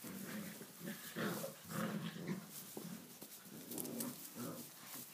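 Six-week-old Tibetan mastiff puppies play-fighting, giving a string of short, irregular growls.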